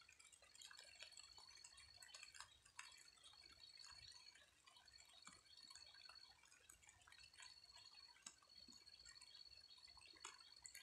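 Faint dripping of light rain, scattered soft ticks, with a thin high steady tone that comes and goes in runs of one to two seconds.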